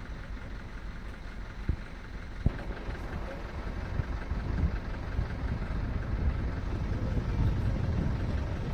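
Low steady rumble of an idling vehicle engine, growing slightly louder, with two sharp knocks close together about two seconds in.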